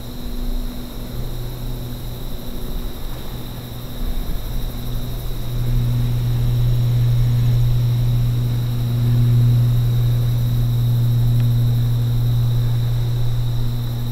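A distant engine droning low and steady, swelling louder about five seconds in and easing off near the end, as of a vehicle or aircraft passing.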